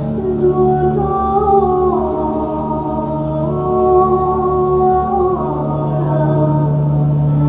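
Slow ambient, meditative music: long held notes that step to a new pitch every second or two over a steady low drone.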